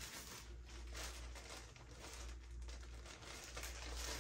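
Rustling and crinkling of clothes and packaging being handled, many small irregular crackles, over a low steady hum.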